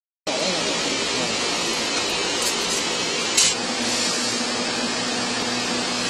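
Vertical hydraulic baler's power unit running steadily, a constant machine noise with a faint steady hum coming in about halfway through and a couple of light clicks.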